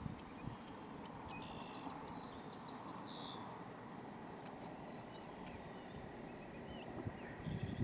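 Quiet outdoor ambience, a low steady rush, with a few faint bird chirps about a second and a half to three seconds in.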